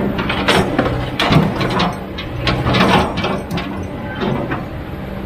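Excavator at work: its diesel engine runs steadily under irregular sharp metallic clanks and scrapes, which grow fewer in the last couple of seconds.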